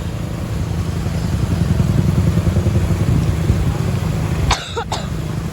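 Close-by vehicle engine rumbling, growing louder over a few seconds, with a sudden short break near the end.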